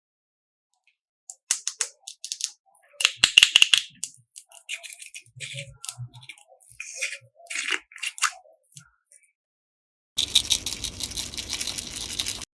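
Slime being handled: scattered sticky clicks and crackles, then about two seconds of continuous fast crackling near the end as it is worked.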